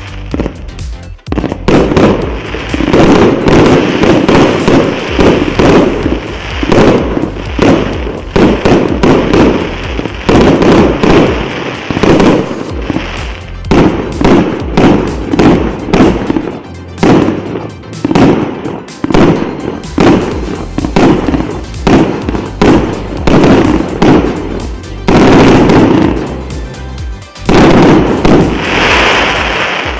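Multi-shot fireworks cake with 1–1.2 inch shells firing in rapid succession, launches and bursts overlapping almost continuously. Heavier barrages come twice near the end.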